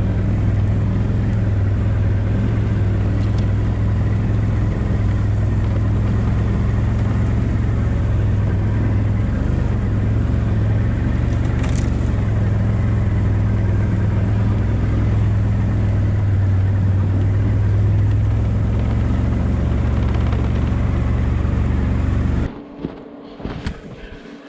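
ATV engine running steadily under way, a loud even drone with a low hum. It cuts off suddenly near the end.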